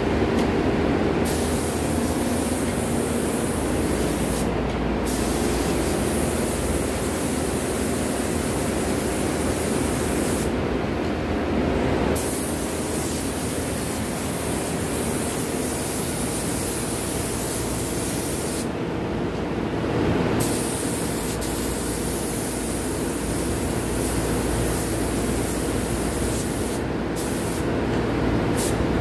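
Paint spray gun hissing as it sprays finish onto wooden furniture. The hiss drops out briefly about five times, and a steady machine drone runs underneath.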